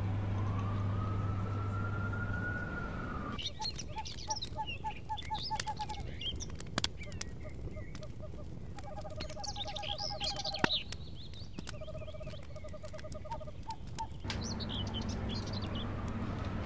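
A siren wailing over a steady low city hum cuts off suddenly, giving way to birds chirping with runs of quick pulsed notes and a few sharp cracks. Near the end the siren and hum come back.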